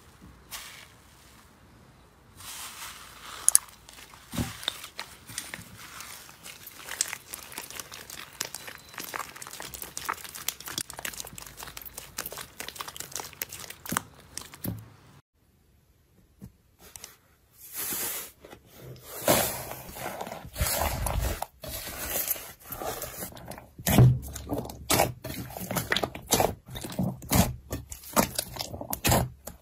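Hands pressing and kneading fluffy green slime with letter beads mixed in, giving a dense run of soft crackling and crunching. After a short pause just past halfway, thick glossy slime is stretched and pulled, with louder sharp pops and clicks.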